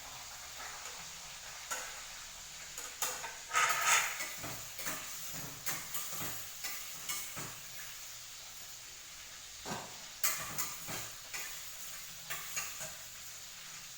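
A cooking utensil stirring and scraping in a pan, with irregular clicks against the pan over a steady sizzle of frying food. There is a denser flurry of scrapes about four seconds in and again around ten seconds in.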